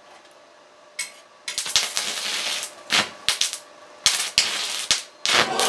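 Stick (arc) welder's arc crackling and sizzling as the electrode burns on a mild-steel bracket. It starts about a second and a half in, then breaks off and restarts several times in short bursts.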